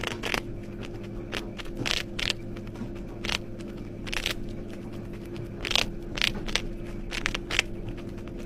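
Close-miked chinchilla nibbling a strawberry: small, irregular crunching bites, roughly two a second, over a steady low hum.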